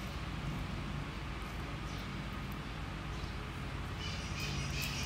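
Close-miked chewing and wet mouth sounds of a person eating, over a steady low background hum; the mouth sounds grow louder and more crackly about four seconds in.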